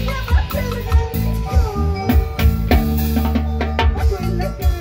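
Live worship band music: a drum kit keeping a steady beat under sustained bass notes, with a melody line gliding over it.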